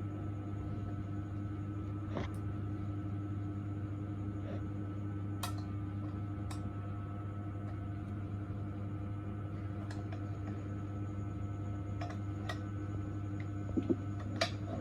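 Steady low hum of dental equipment, with a few sharp light clicks scattered through it, like metal instruments tapping.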